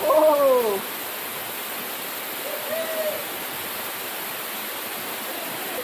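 Steady rushing of a waterfall. A man's drawn-out, falling "oh" is heard at the start, and a short voiced call about three seconds in.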